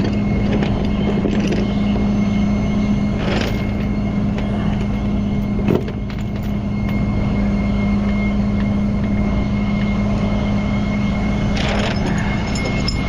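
Tow truck engine running steadily at a fast idle, as it does to drive the rollback's hydraulics during a recovery, with a few short knocks of metal over it.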